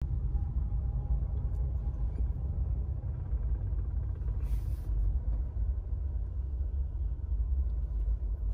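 Low, steady rumble of a car heard from inside the cabin as it rolls slowly along, with a brief hiss about halfway through.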